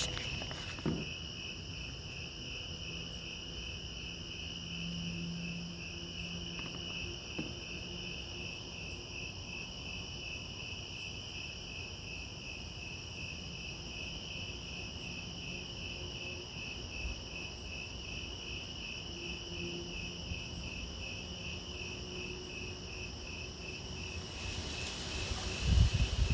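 Crickets chirping in a fast, even pulse, with a steady high insect trill above them. A faint low hum comes and goes underneath, which the uploader hears as a machine-like sound, not a car, plane or thunder. Low thumps of wind on the microphone are the loudest thing, near the end.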